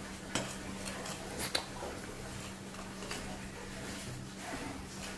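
A spoon stirring dry glutinous rice flour in a bowl: faint scraping with a couple of light clicks against the bowl, about half a second and a second and a half in, over a steady low hum.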